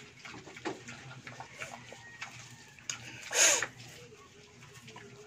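A pig and a puppy feeding on cabbage leaves on a concrete floor: scattered chewing and snuffling clicks, and one short, loud, breathy snort about three and a half seconds in.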